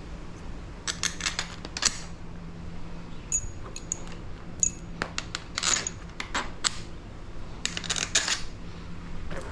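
Small metal parts clinking and tapping in quick clusters, a few with short high rings: handlebar clamp bolts and hardware being handled while new bars are fitted to a dirt bike.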